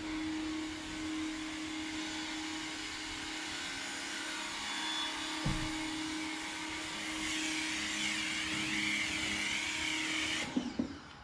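Ryobi 1600 PSI electric pressure washer running: a steady motor and pump hum under the hiss of the water spray. The hiss wavers over the last few seconds, and the machine stops about ten and a half seconds in.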